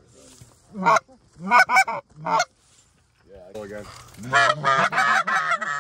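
Canada goose honks and clucks: a few single honks, then a fast run of overlapping calls from about three and a half seconds in.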